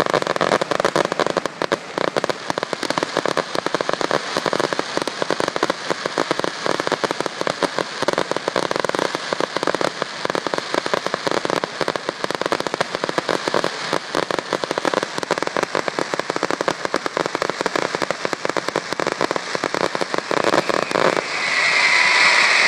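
Aerial fireworks going off in a dense, rapid barrage of crackling pops and bangs. About a second before the end the crackling stops and a steady, louder rushing noise takes over.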